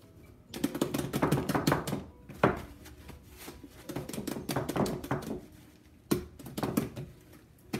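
Fluffy slime being squeezed and kneaded in bare hands, making sticky crackling squelches in three bursts, with one sharper slap about two and a half seconds in.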